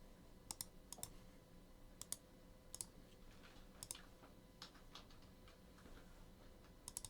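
Faint, irregular clicks at a computer, a few sharp clicks spread a second or so apart over a quiet room.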